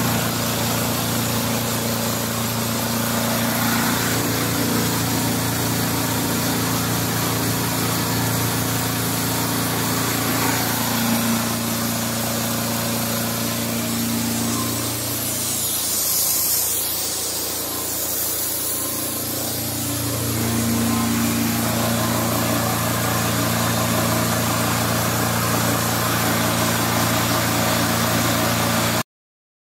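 Diesel engine of a high-pressure hot-water and steam cleaner running steadily, with the continuous hiss of steam jetting from the spray lance. About halfway through the engine note weakens for a few seconds, then comes back; the sound stops abruptly near the end.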